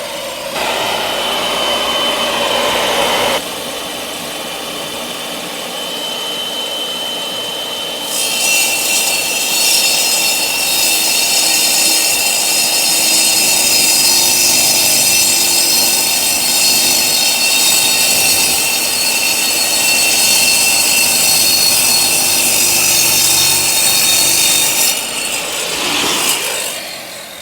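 Harbor Freight Chicago Electric 10-inch tile and brick saw running, its diamond blade cutting through a 2.5-inch-thick paver with a loud, steady, high-pitched grinding. The grinding grows much louder about eight seconds in as the blade bites deeper, and drops away near the end as the cut finishes.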